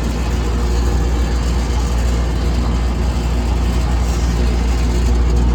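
Trane CGAM chiller compressor running with a steady low hum, just brought back on line after its compressor protector modules were reset.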